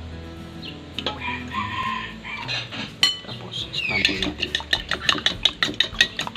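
Metal spoon beating raw eggs in a ceramic bowl. A sharp tap comes about three seconds in as a second egg is added, then a quick run of spoon clinks against the bowl, about four or five a second.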